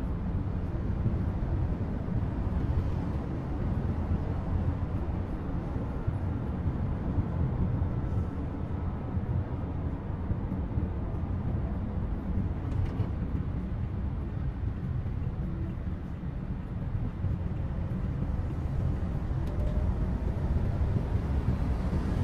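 Steady low rumble of engine and road noise heard inside the cabin of a Toyota HiAce van driving along.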